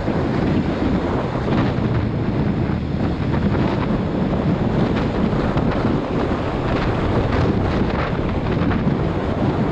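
Wind buffeting the microphone of a motorcycle rider's camera while riding at town speed, a steady rumble with the bike's engine and tyres on the wet road underneath.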